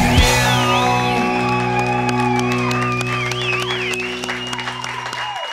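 Live rock band holding a final chord: electric guitar and bass sustain one steady chord, a high note wavers and bends over it, and drums hit under it, until the chord cuts off shortly before the end.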